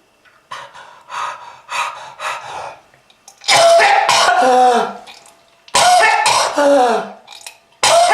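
A smoker coughing in fits: a few lighter coughs, then three long, loud hacking coughing fits, each ending in a voiced sound that falls in pitch.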